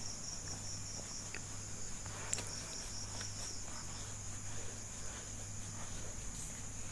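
Steady high-pitched chirring of insects, with a low steady hum beneath. Faint small clicks and rustles come from copper coil wires being handled on a ceiling fan stator, one a little more distinct about two and a half seconds in.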